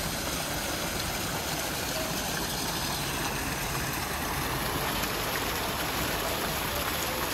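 Steady rush of water from a fountain splashing into its basin, an even noise with no distinct strokes.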